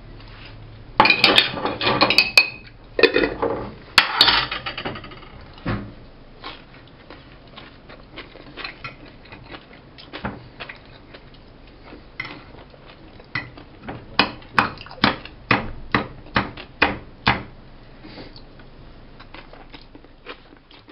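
Metal fork scraping and clinking against a plate while picking up food. Dense scraping and clatter in the first few seconds, then scattered clicks and a run of sharp clicks, about two a second, later on.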